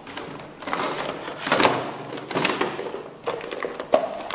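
Hands rummaging through a plastic toolbox: plastic bags and cases rustle and items clunk against the plastic, with several sharp knocks.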